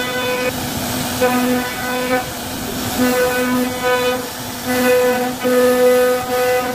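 CNC router carving wood: a steady, high machine whine of one fixed pitch that breaks off and starts again every half second to a second as the cutter works the pattern.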